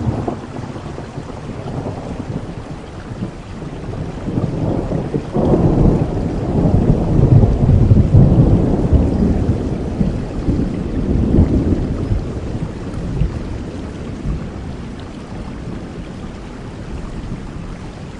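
Steady rain with a long roll of thunder. The rumble begins right at the start, swells to its loudest in the middle and slowly dies away.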